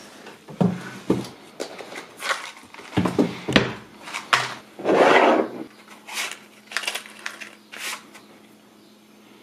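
Small knocks and rustling as a matchbox is picked up from a wooden desk and handled, then a wooden match scraped several times against the box's worn striker strip without lighting.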